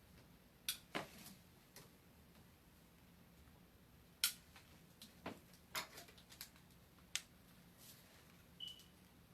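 Scattered light clicks and taps of hair-styling tools, about a dozen over several seconds with the sharpest about four seconds in, and a short high beep near the end.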